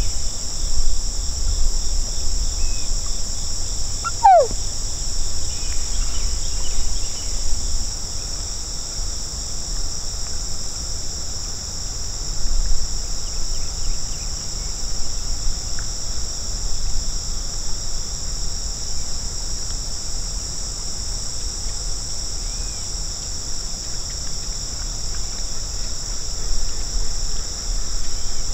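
Steady high-pitched chorus of insects singing in a marsh, with a low rumble underneath. About four seconds in, one short whistle falls in pitch.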